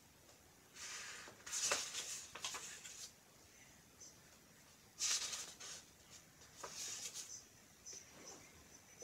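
Scribbling strokes on a small spiral notepad: two scratchy spells of a couple of seconds each, with quiet between them.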